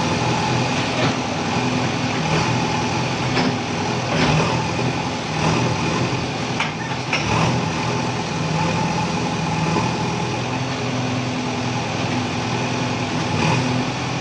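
JCB 3DX backhoe loader's diesel engine running steadily under load while the backhoe bucket digs through brick rubble, with scattered knocks and clatters of bricks.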